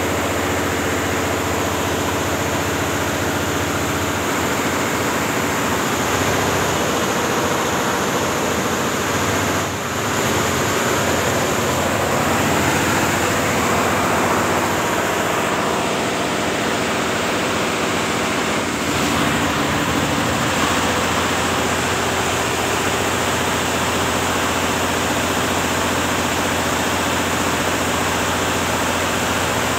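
Computerized embroidery machine running: a continuous mechanical clatter and hum.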